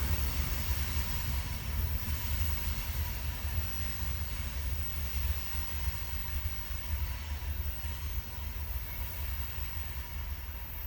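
Heavy CSX freight train rolling upgrade: a steady low rumble that eases slightly toward the end.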